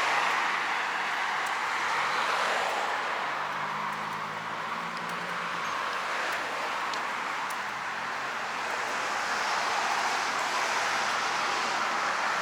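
Road traffic passing: a steady hiss of tyres and engines that swells and fades as cars go by, with a faint low engine hum partway through.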